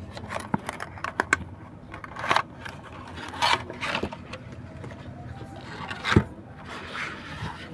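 Cardboard retail box and its white packaging insert being handled: a run of small clicks and taps, then several short rustling scrapes as the insert is slid out of the box, the loudest about six seconds in.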